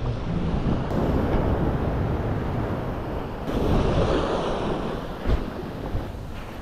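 Sea waves washing against coastal rocks, with wind buffeting the microphone; the surf swells up about halfway through, and there is a single short thump about five seconds in.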